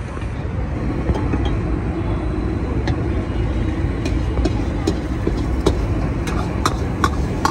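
Steady rushing roar of a gas burner under a wok, with eggs frying in it; from about halfway through, a metal ladle clinks and scrapes against the wok several times as the eggs are stirred and broken up.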